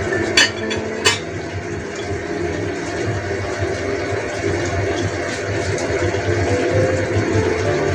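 Braising sauce simmering in a stainless steel wok of fried tofu, chicken and shimeji mushrooms, a steady bubbling hiss. Two sharp clicks come about half a second and a second in.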